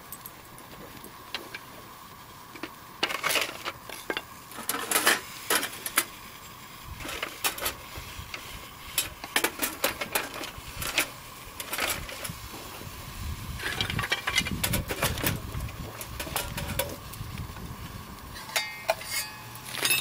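Small stainless-steel camp stove being handled and set down over a wood fire: scattered light metal clinks and rattles, with knocks of wood sticks being moved about.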